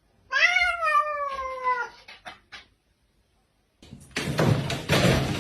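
A domestic cat gives one long meow that rises at first and then slides slowly down, followed by a few short clicks. Near the end, a loud, dense rush of noise begins.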